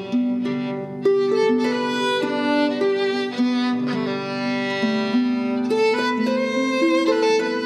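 Solo Celtic harp being played: plucked notes, a melody over lower notes, each string left to ring on into the next.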